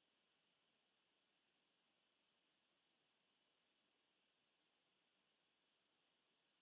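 Computer mouse button clicking, one quick press-and-release tick about every one and a half seconds, against near silence.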